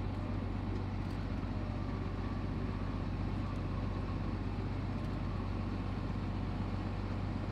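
Large off-road truck's diesel engine idling steadily, a low even hum.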